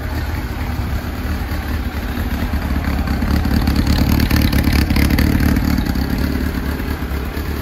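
Honda CB1300 Super Four's inline-four engine idling through a LAZE 4-2-1 full aftermarket exhaust, a steady low note that swells louder for a few seconds midway.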